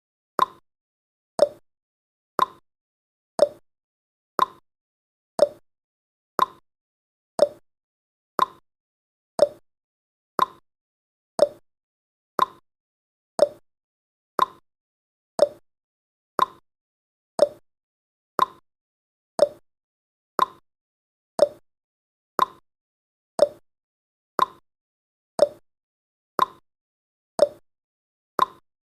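Clock-style tick-tock sound effect: a sharp click once every second, alternating between a higher tick and a lower tock, marking off the countdown seconds.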